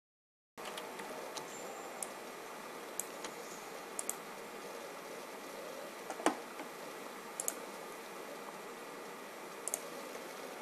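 Steady room hiss that cuts in about half a second in, with a dozen or so sparse, sharp clicks scattered through it. One click about six seconds in is louder than the rest.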